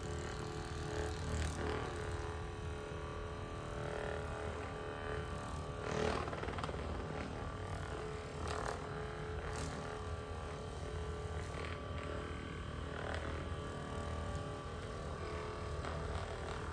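Handheld percussion massage gun running with its round foam head pressed against the muscles of the arm: a steady motor hum with many tones.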